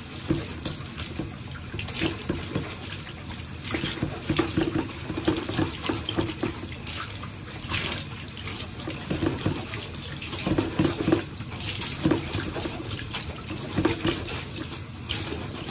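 Water running from a bath tap over a fabric mat that is being hand-washed, with irregular splashing and sloshing as the wet cloth is rubbed and squeezed under the stream.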